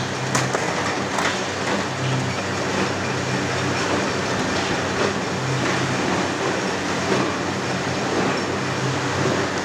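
Steady industrial machinery noise in a steel forging shop, with a low hum that comes and goes every second or two and a few faint clicks.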